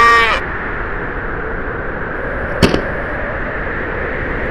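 A steady rushing noise throughout, with a pitched tone cutting off just after the start and a single sharp click about two and a half seconds in.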